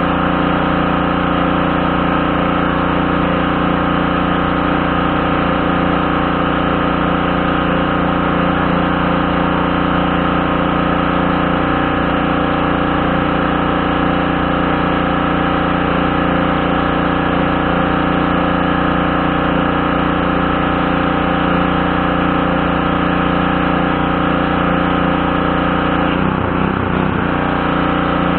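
Craftsman pressure washer's Briggs & Stratton 550E series 140cc single-cylinder engine running steadily at a constant speed, with a brief wobble in its low tone near the end.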